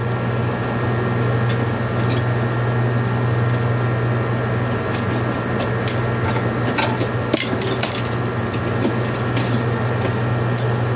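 Window-type air conditioner running, its compressor and fan motor giving a steady low hum with a few steady higher tones, and scattered light clicks and clinks over it.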